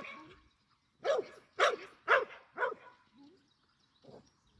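Dog barking: four sharp barks in quick succession about a second in, then a couple of fainter ones.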